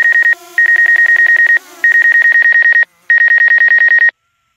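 DJI drone app's obstacle-proximity warning: rapid high electronic beeps, about ten a second, in runs of about a second with short gaps, stopping near the end. It sounds because an obstacle, here a hand, is within a few feet, then a foot, of the DJI Mavic's sensors.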